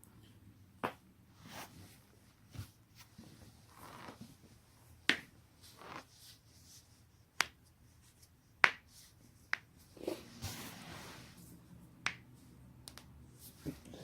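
Joints being cracked: about eight sharp pops at uneven intervals, the loudest about five and eight and a half seconds in, with softer scuffing noise between them.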